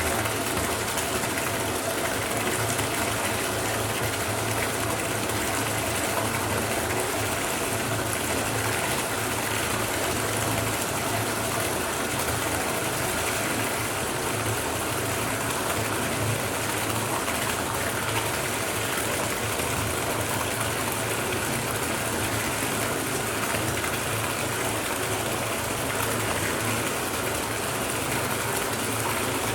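Bathtub filling from the tap: water gushing steadily into the tub, an even, unbroken pour.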